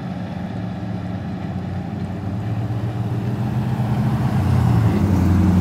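Diesel engine of a GE 65-ton switcher locomotive running steadily as it pulls away with its train. Road traffic passes close by, getting louder in the second half.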